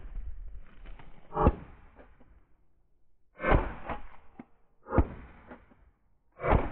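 Slow, deliberate footsteps crunching through dry wheat stubble: four heavy steps, each a short crackle with a dull thump, with faint rustling of the straw between them.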